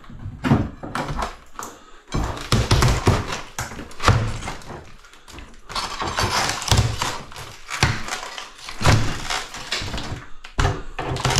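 A steel wrecking bar levering and knocking at old bathroom wall sheeting to break it off a steel stud frame: a run of irregular knocks and cracking impacts.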